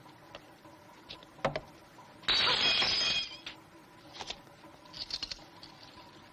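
Glassware shattering with a loud crash of about a second, its ringing pieces audible in it, about two seconds in; then a few small clinks and crunches of broken glass underfoot.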